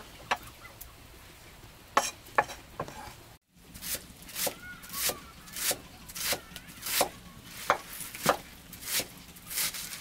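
A kitchen knife chopping green onions on banana leaves laid over a woven bamboo tray, in a steady rhythm of about three strokes every two seconds. A few separate sharp knocks come before the chopping settles in.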